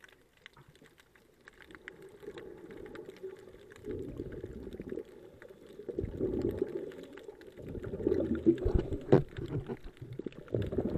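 Muffled underwater bubbling and rushing water, heard through a waterproof camera housing. It grows louder from about four seconds in, with a couple of sharp knocks near the end.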